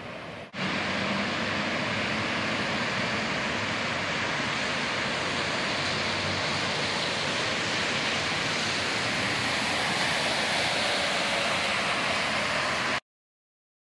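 Floodwater waterfall pouring off a red sandstone cliff: a loud, steady rushing of falling water that starts abruptly about half a second in and cuts off suddenly near the end.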